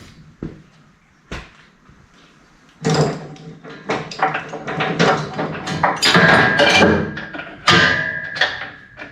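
A few light knocks, then from about three seconds in steel chains clanking and rattling continuously as they are handled and pulled off, the links ringing against metal.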